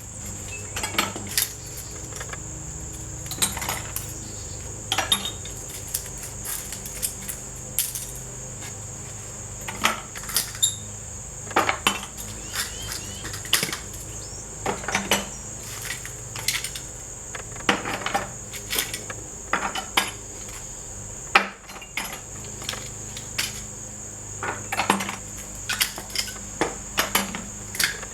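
Irregular metallic clinks and knocks of metal parts being handled while an air conditioner is scrapped, over a steady high-pitched whine.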